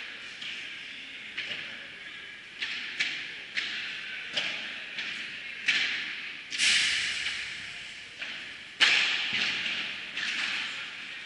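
Padel balls being struck and bouncing, a string of sharp, irregular pops and knocks that echo through a large hall, with two louder cracks in the second half.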